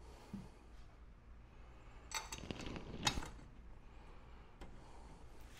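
Faint metallic clinks and clicks of small bolts being handled and started by hand into an aluminum mount plate, a couple of them louder about two and three seconds in.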